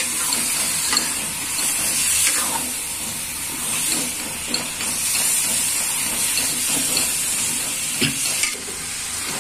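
Chicken pieces frying in oily spice masala in a metal karahi, sizzling steadily as a steel spoon stirs them, with a few clicks of the spoon against the pan, the clearest about eight seconds in. The masala has already released its oil, the bhuna stage of the curry.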